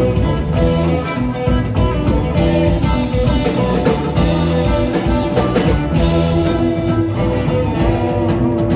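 Live psychedelic rock band playing: electric guitars holding sustained notes over a drum kit.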